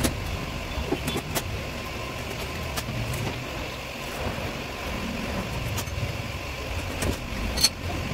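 Steady low background rumble, with scattered light clicks and knocks of a hand riveter and stainless sign stands being handled, and one sharper snap near the end.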